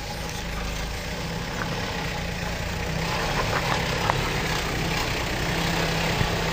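Toyota off-road 4x4's engine running steadily at low revs as it crawls over a rock slab, with a few short clicks over the low rumble.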